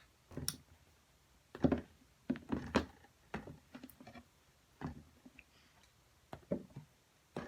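Light knocks, taps and rustles of squishy toys and their packaging being picked up and handled close to the microphone, a dozen scattered short sounds with quiet gaps between them.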